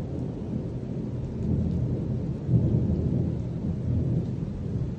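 Thunder rolling in a long low rumble that swells in waves, loudest about two and a half seconds in.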